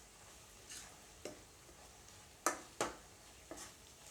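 A spatula stirring chilli-powder masala frying in oil in a kadai: about five short scrapes and knocks against the pan, the two loudest together past the middle, over a faint sizzle.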